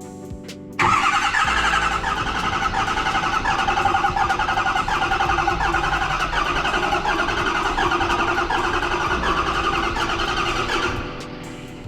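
Truck engine turning over on the starter motor without firing, a steady pulsing crank that starts about a second in and stops near the end. It is being cranked with the throttle held to the floor for a relative compression test, which points to low compression on cylinder 3, with cylinder 4 a little low.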